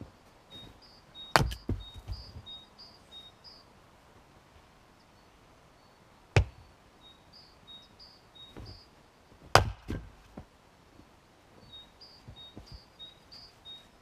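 Fiskars X25 splitting axe chopping firewood: three sharp, loud chops a few seconds apart, each followed by a few smaller knocks.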